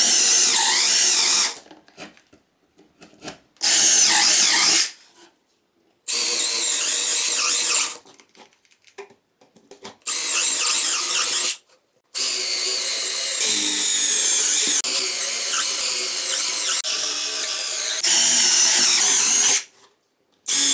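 Brushless motor of a Parkside Performance 12V cordless drill driver running in repeated bursts, each starting and stopping abruptly: four short runs of one to two seconds, then one of about eight seconds. The 4 Ah battery is nearly flat at the end of a run-down test.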